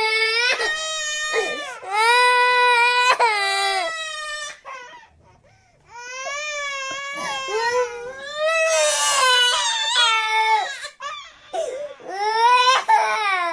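A young cartoon character crying: long, high-pitched, wavering wails broken into several sobs, with a pause of about a second partway through.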